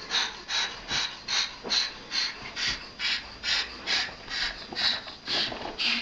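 White cockatoo hissing in rhythm, about two and a half breathy huffs a second, as a threat display at a cat.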